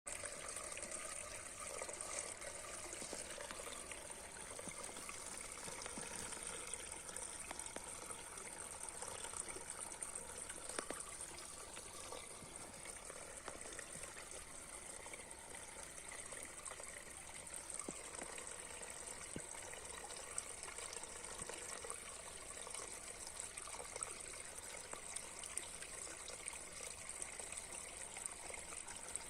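Mountain spring water trickling steadily, with small scattered splashes and a steady high-pitched hiss over it.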